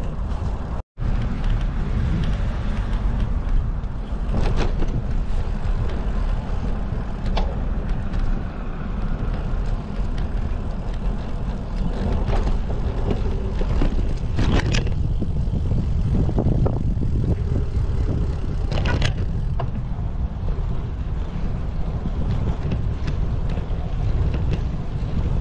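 Wind buffeting the microphone on a moving bicycle, a steady low rumble, with occasional knocks and rattles as the bike rides over paving. The sound cuts out for an instant about a second in.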